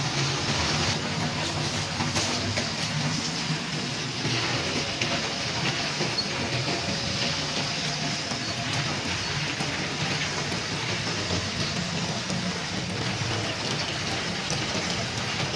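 Steady machinery drone with a low hum and a hiss, with faint scattered clicks.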